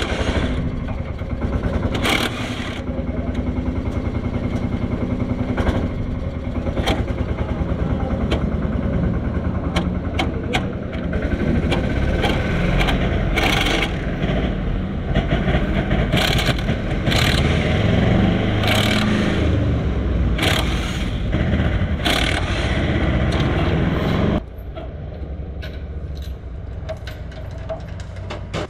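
An engine or motor running steadily under loud metallic clicks and scraping, dropping to a quieter level about four seconds before the end.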